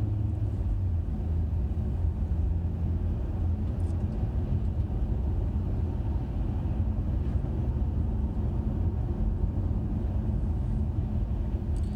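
Steady low rumble of a 2017 Honda Accord V6 being driven, heard from inside the cabin: engine and road noise.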